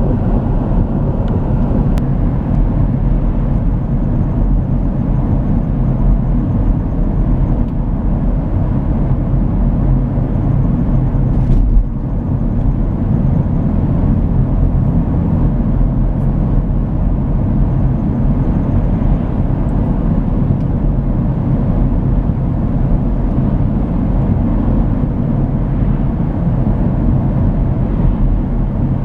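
Van driving at steady road speed: a continuous low drone of tyres, wheel and road noise, with a short click and a slight drop in level about twelve seconds in.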